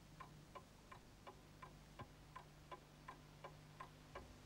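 Faint, steady clock ticking, about three ticks a second.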